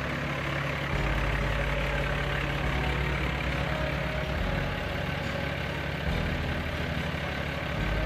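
Semi tractor's diesel engine idling steadily close by, over a steady rushing noise.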